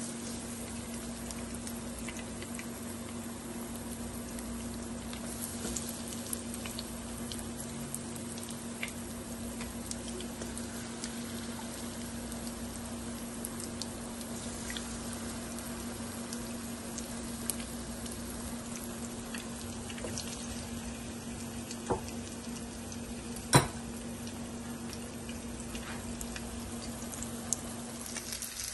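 Food cooking in a pan, bubbling steadily with scattered light crackles over a low steady hum. There are two sharp knocks, the louder one about 23 seconds in.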